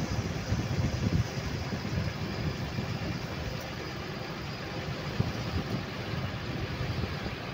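Steady low rumble of a moving vehicle on the road: engine and tyre noise mixed with wind buffeting.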